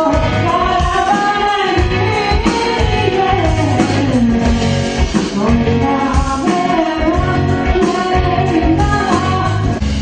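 Live band music: a male singer sings into a microphone over electric guitar and rhythm accompaniment. Near the end the singing stops and the electric guitar takes over.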